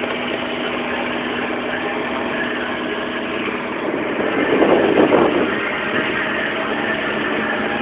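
Car engine and road noise heard from inside the cabin while driving, with a louder, rougher stretch about four to five seconds in.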